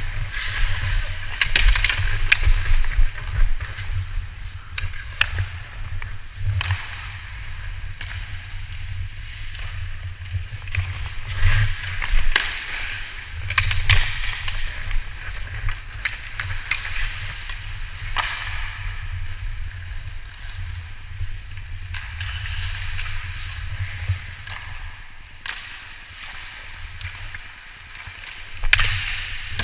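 Ice hockey skates scraping and carving on the ice in swells, with sharp knocks of sticks and puck every few seconds over a steady low rumble.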